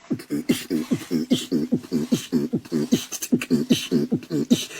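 A man's voice doing beatbox-style vocal percussion: short pitched vocal pulses that drop in pitch, in a quick even rhythm of about four to five a second, with hissing hi-hat-like strokes between them.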